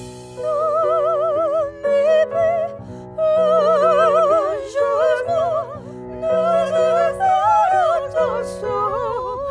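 An operatic soprano singing sustained notes with a wide, even vibrato, phrase after phrase, accompanied by piano chords.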